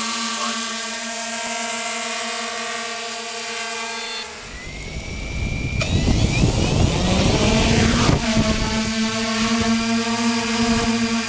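3DR Iris quadcopter's electric motors and propellers humming steadily in a hover. About four seconds in, the sound switches to the drone's onboard camera close to the ground: propeller downwash buffets the microphone with a low rumble while the motor pitch rises and falls, then settles back into a steady hum.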